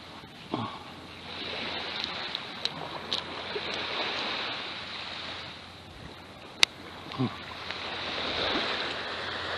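Waves washing on a beach, the surf swelling and easing, with a few sharp clicks and snips from scissors cutting a small fish; the loudest click comes about two-thirds of the way in. Two short low thumps fall near the start and near the end.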